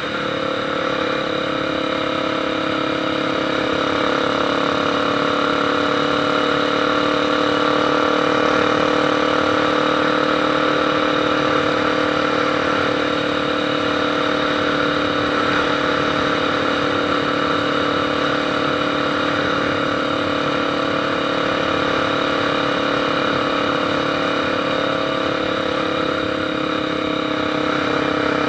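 Motorcycle engine idling at a steady, unchanging pitch.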